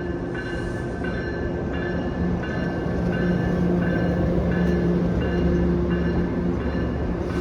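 Locomotive bell ringing steadily, about one and a half strikes a second, over the running diesel engine of a commuter train locomotive. The engine grows louder about three seconds in.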